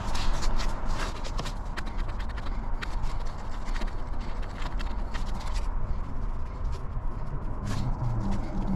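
Irregular metallic clicks and taps of hand tools and small metal parts being handled during work to remove a refrigerant valve core. They come thickest in the first few seconds, over a steady low rumble.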